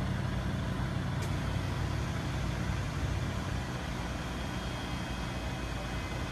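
Steady low mechanical hum, like an idling motor, under an even hiss, with one short sharp tick about a second in.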